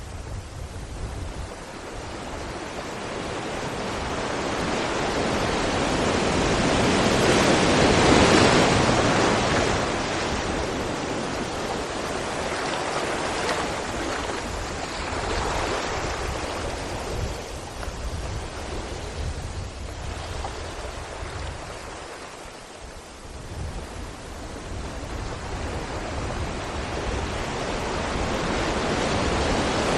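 Sea waves breaking against rocks: the surge swells to a peak about eight seconds in, washes back and fades, then builds again near the end.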